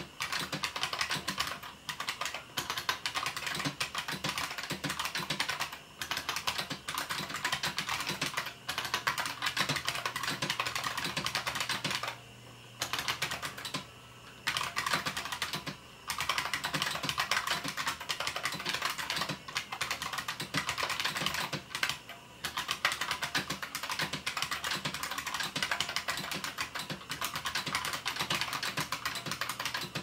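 Continuous typing on a bolt-modded 1992 IBM Model M Space Saving Keyboard: a dense clatter of buckling-spring key clicks, broken by a few short pauses.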